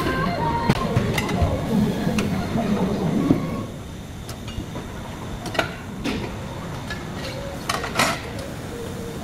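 Tire changer at work on a light-truck steel wheel: a loud rumbling, clattering stretch, then after about three and a half seconds a quieter stretch with a few sharp metallic knocks as the tire is worked onto the rim on the turntable.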